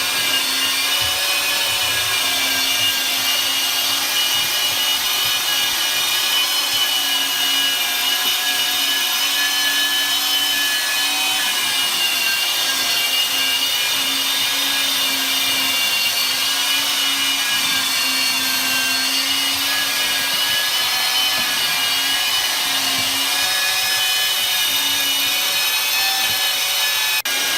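Wet/dry vacuum running steadily with a high motor whine, picking up leaked water from the floor.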